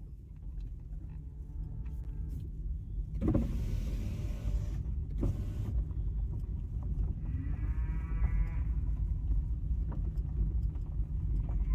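Low steady rumble inside a car, with a power window's motor whining as a window moves, and a couple of short bursts of hiss a few seconds in.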